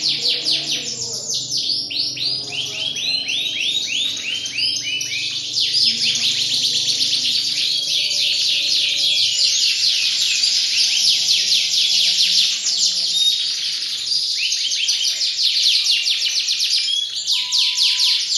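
Domestic canary singing a long, unbroken song of fast rolling trills, each made of rapid high notes sweeping down in pitch.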